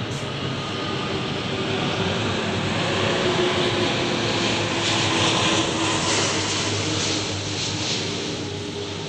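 Jet airliner passing low overhead, its engines' roar swelling to its loudest about five seconds in, then easing off.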